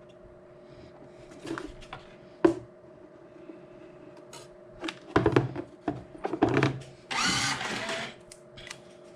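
Knocks and clatter of parts being handled on a workbench, then about seven seconds in a small handheld power tool, like a cordless drill, whirs for about a second. A faint steady hum runs underneath.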